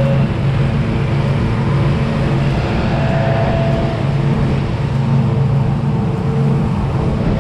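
Scag V-Ride stand-on mower's engine running at a steady speed as the mower drives across the lawn.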